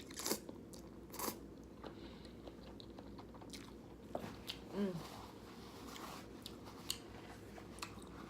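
A person chewing a mouthful of creamy vegan pasta close to the microphone, with sharp wet mouth clicks and smacks about once a second.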